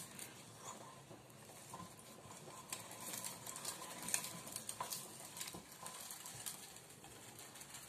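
Metal hand-cranked meat grinder crushing walnuts with cilantro and garlic: faint, scattered crunching and clicking.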